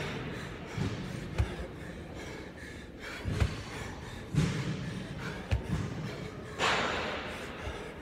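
Dumbbell snatches: dull thuds every second or so as the hex dumbbell comes down to the gym floor and the feet shift. There is one sharp, forceful exhale near the end.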